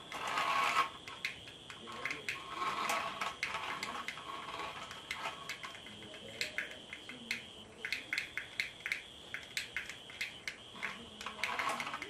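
Miniature remote-control toy car's small electric motor and plastic gears whirring in short spurts as it drives on a tile floor, with a run of rapid sharp clicks in the second half.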